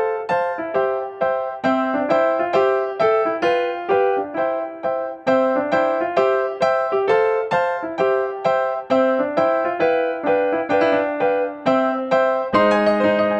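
Background music: a keyboard melody of quick, evenly spaced notes, about three or four a second, with fuller, lower chords coming in just before the end.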